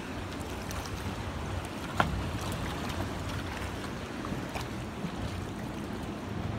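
Steady wind and sea noise from open water, with a low rumble beneath, and one sharp knock about two seconds in.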